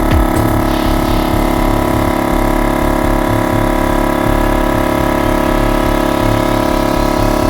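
Dune single-piston 12-volt air compressor running steadily as it inflates a flat 4WD tyre, a constant motor hum over a rough low piston rumble.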